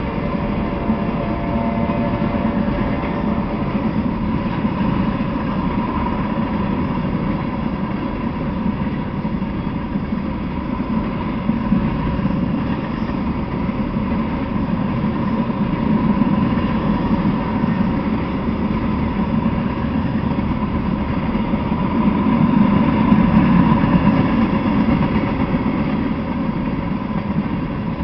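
Freight train of tank cars rolling past: a steady rumble of steel wheels on the rails, swelling a little about three-quarters of the way through.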